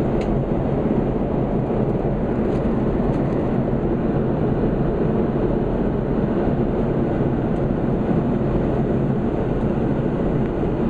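Steady low rumble of engine and airflow noise heard inside an airliner cabin as it descends to land.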